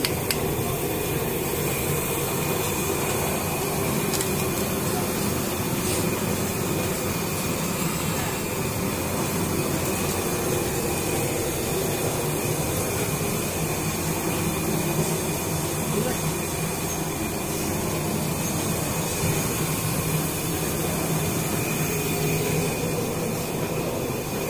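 Puffed-rice (muri) making machine running: a steady, even mechanical drone and hiss from the rotating roasting drum and its belt drive.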